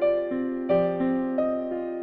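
Background music: a gentle piano melody, single notes struck about three times a second, each fading before the next.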